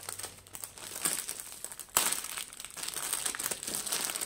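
Crinkling packaging from a cross-stitch kit, handled and unfolded in irregular crackles, with one sharper crack about halfway through.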